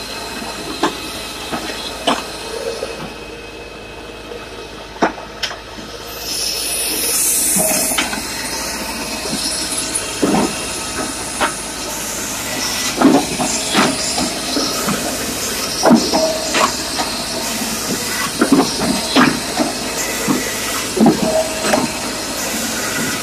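Hakki Pilke 2X firewood processor running, a steady machine noise with split firewood pieces knocking and clattering as they come off the splitting wedge and ride the conveyor. The knocks come thicker and louder in the second half.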